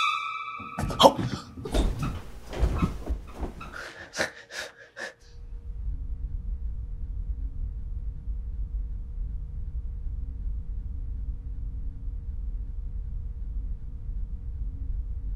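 A brief ringing tone, then several seconds of thuds, knocks and rustling, then a steady low rumble that runs on.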